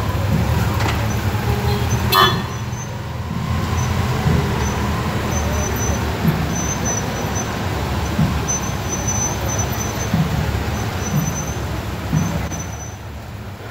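Police motorcycles riding slowly past: a steady low engine rumble, with a short click about two seconds in.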